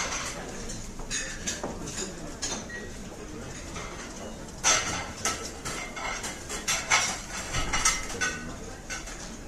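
Cutlery and crockery clinking: a string of short clinks and scrapes over a steady background hum, busiest from about halfway through.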